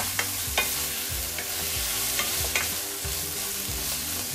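Sliced lotus root and ground meat sizzling in a nonstick frying pan as a wooden spatula stirs and scrapes them, with a few sharp taps of the spatula against the pan.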